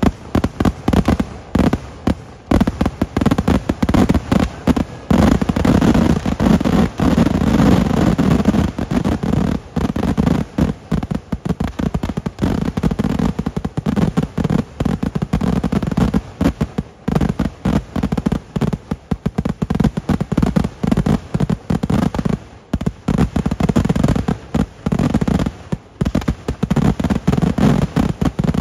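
Vedikettu fireworks going off in a continuous rapid barrage, many bangs a second, with only brief lulls, as shells are fired up from the ground one after another.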